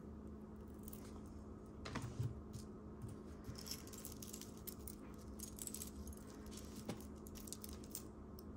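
Metal costume jewelry clinking and jingling faintly as hands pick through a pile of pieces: many small scattered clicks, with a couple of louder clinks about two seconds in and again near seven seconds.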